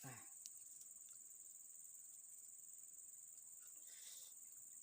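Insect chorus: a steady, faint, high-pitched chirring.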